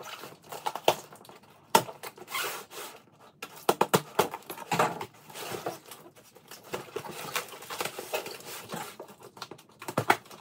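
A cardboard shipping box being opened and handled: packing tape slit and torn, and the cardboard rustling, scraping and knocking in irregular bursts, with one sharp knock a little under two seconds in.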